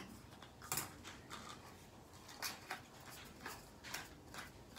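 Clear plastic water bottles being handled and twisted on a table: a few scattered light clicks and taps.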